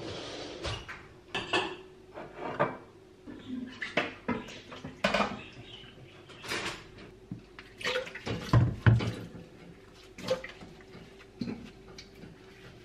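Dishes being cleared and handled: a drinking glass, plates and a ceramic bowl clinking and knocking as they are lifted and set down, with a few heavier knocks about two-thirds of the way in. Near the end a pan is scrubbed by hand. A faint steady hum runs underneath.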